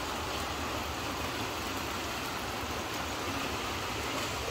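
Steady hiss of rain falling, with a low rumble underneath and no distinct sounds standing out.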